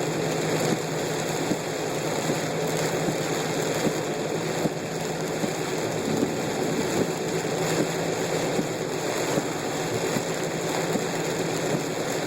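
A car driving through heavy rain on a flooded road: a steady rush of tyres through standing water and rain, over a low steady hum, with many small raindrop ticks.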